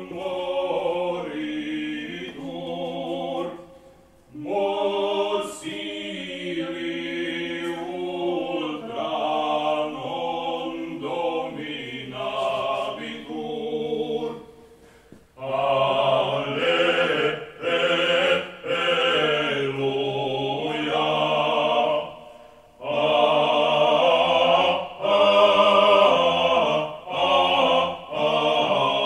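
Small vocal ensemble singing a cappella, several voices together in sustained sung phrases. The singing breaks off briefly three times, about four, fifteen and twenty-two seconds in.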